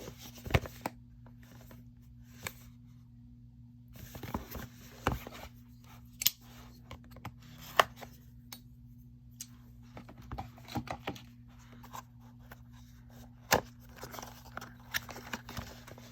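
Cardboard knife box being opened and its packaging handled by hand: scattered sharp clicks and taps with short bursts of rustling and tearing, over a faint steady low hum.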